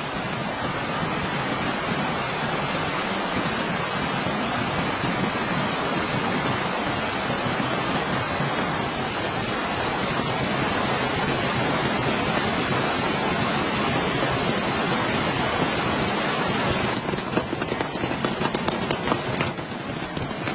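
Steady rain, an even hiss. In the last few seconds it turns patchier, with separate drops striking.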